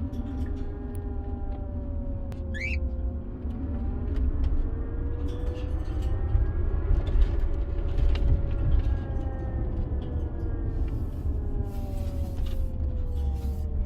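Tesla Model X rear drive unit whining while driving, over low tyre and road rumble. The whine is several tones together that slowly rise and fall in pitch as the motor speeds up and slows. It is the rear-motor whine, or 'milling sound', that the owner traces to the rear motor or its reduction gear. A short rising chirp comes about two and a half seconds in.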